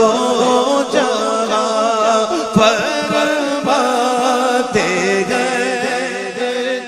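A man singing an Urdu naat unaccompanied by instruments, drawing out long, wavering notes without clear words, over a steady low drone.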